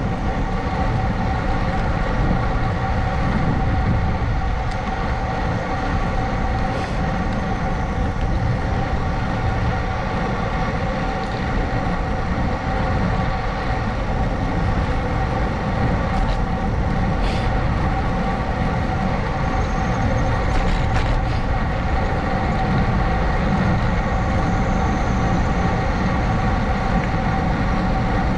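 Steady wind and road rush on a moving action camera's microphone, with a constant hum of several steady tones over it, from a ride at a steady pace.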